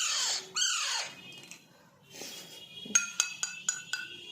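Baby parrot giving two shrill calls that fall sharply in pitch, then a quick run of about six sharp, ringing clinks about three seconds in.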